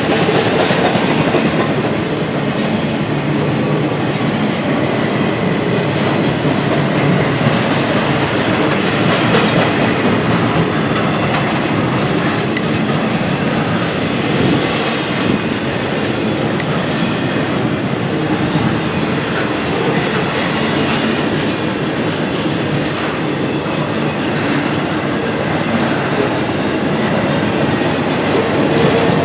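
Norfolk Southern train cars rolling steadily past: a continuous wheel-and-rail rumble with clickety-clack.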